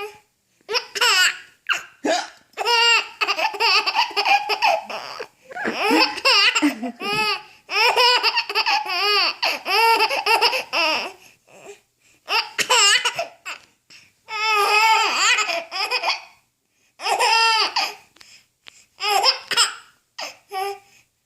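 Four-month-old baby laughing in repeated high-pitched bursts of giggling, with short breaks between them.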